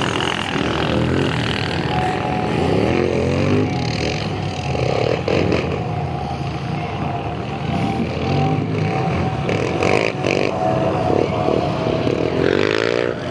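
Several racing ATV engines revving up and down as the quads accelerate and slow around the track, with a steady engine note held underneath and a rising rev near the end.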